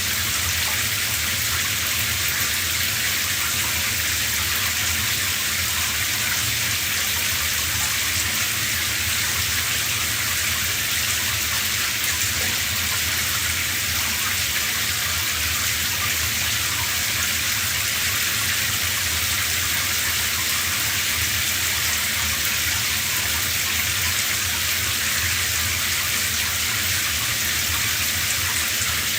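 Shower running: a steady spray of water with an even hiss that does not change.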